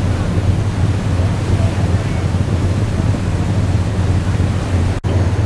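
Steady low drone of a wooden excursion boat's engine under way, with wind buffeting the microphone and water rushing past the hull. The sound breaks off for an instant near the end.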